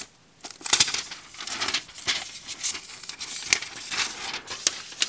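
Thin plastic protective sleeve crinkling and rustling as it is pulled off a new smartphone, with a few sharp clicks among the rustle.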